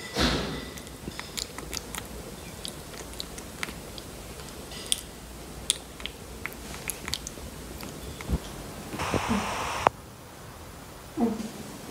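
Baby macaque biting and chewing on a plastic feeding spoon of porridge, with scattered small clicks. A brief rustle comes about nine seconds in.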